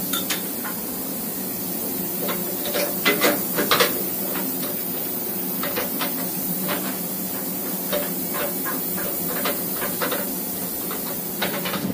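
Steady machine-shop hum and hiss, with scattered light metallic clicks and knocks as tools and vise parts are handled at a CNC milling machine, a cluster of them about three to four seconds in.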